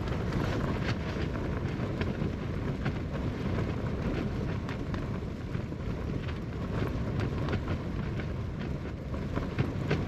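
Strong, gusting wind buffeting a Hilleberg Soulo BL tent from inside, a steady rumble of shaking fabric with a scattered patter of small hits on the flysheet.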